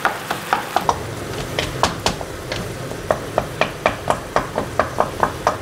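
Wooden spatula knocking and scraping against a frying pan while stir-frying minced chicken in its seasoned liquid over a faint sizzle. The strokes come unevenly at first, then settle into a quick even rhythm of about four a second. The mince is being broken up fine while the liquid cooks off.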